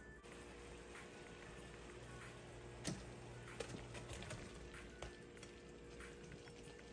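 Tomato sauce simmering faintly in a frying pan, with a few soft knocks as browned kofta kebab meatballs are slid off a plate into it.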